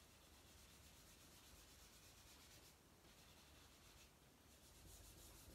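Faint rubbing of a black pastel stick shading on paper, in quick repeated strokes with two short pauses in the middle.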